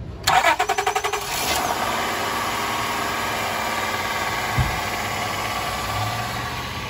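1999 Acura TL's 3.2-litre V6 cranked by the starter for about a second, then catching and settling into a steady idle. There is one short thump about halfway through.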